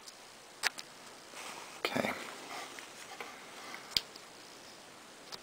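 A screwdriver working against the metal bearing and frame of a teletype's main shaft: a few sharp metal clicks, the clearest about two seconds in with a short scrape around it.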